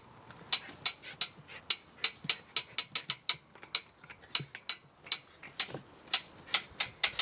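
Old hand-cranked winch's ratchet pawl clicking over the toothed wheel as the handle is turned: a run of sharp metallic clicks, about three or four a second and unevenly spaced, each with a short ringing tone.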